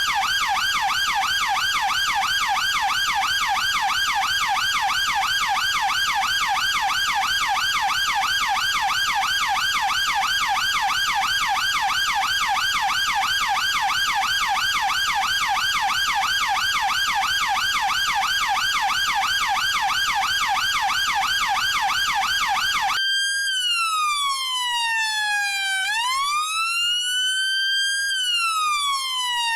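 British police car electronic siren on its fast yelp, the pitch warbling up and down several times a second. About 23 seconds in it switches to the slow wail, falling and rising about every three seconds.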